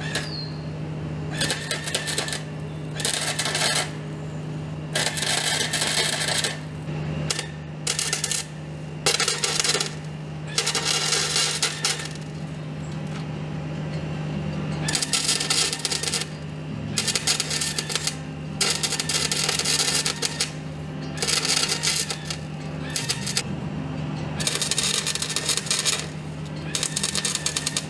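Welder plug-welding holes shut in car body sheet metal: short bursts of arc crackle and sputter, each lasting up to about a second and a half and repeating many times with brief pauses, over a steady low hum.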